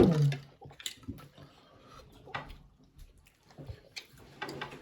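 Noodle eating: slurping and wet mouth smacks in short bursts. Right at the start comes the loudest sound, a short voiced sound that falls in pitch.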